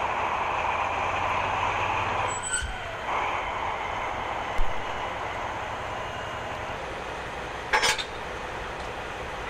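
DB class 215 diesel-hydraulic locomotive idling at a standstill, a steady engine hum. A few short metallic clinks come near the end, as the locomotive is being coupled to the coal train.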